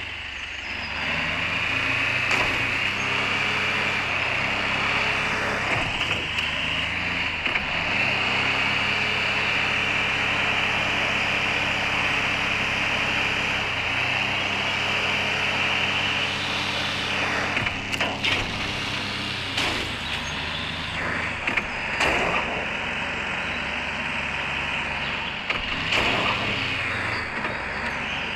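A 4x4 vehicle's engine running steadily as it drives over rough ground, its pitch shifting a few times, with steady tyre noise. Scattered knocks and rattles come through, more of them in the second half.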